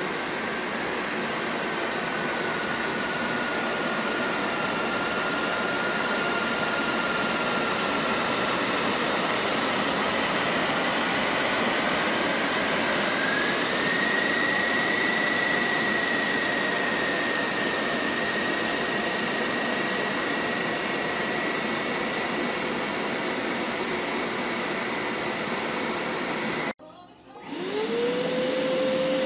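Hoover Power Scrub Deluxe FH50150 carpet washer running on carpet: a steady whooshing motor noise with a thin high whine that steps up in pitch about halfway through. Near the end the sound drops away for a moment, then comes back as the whine rises and settles.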